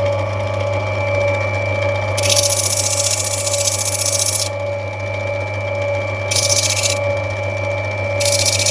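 Opal-cutting machine's electric motor running with a steady hum, and three bouts of hissing grind as an opal is pressed against the spinning wheel to rub it back: the first about two seconds long, the other two shorter.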